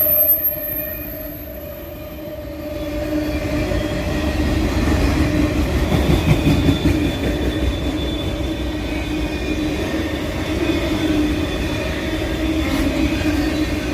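CSX freight train rolling by with a steady low rumble and thin, high squealing tones over it. It dips briefly near the start, then builds back up.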